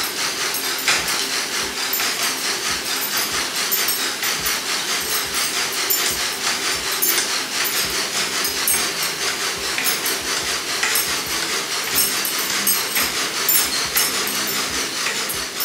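Air-resistance fan exercise bike being pedalled with its moving handlebars: a steady whooshing hiss from the fan wheel, with frequent irregular clicks and knocks from the moving parts.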